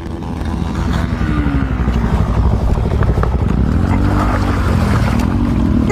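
Dirt bike engine running close to the microphone, its pitch rising and falling as the throttle is blipped several times, mostly in the second half.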